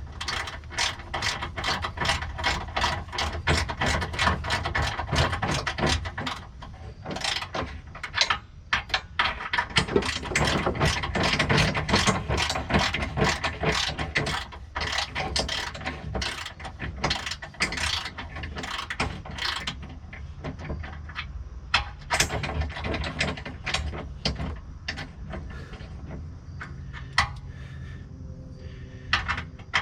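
Ratchet wrench clicking rapidly in repeated strokes as a bolt is turned, with a short pause about eight seconds in; the clicks become sparser in the last third.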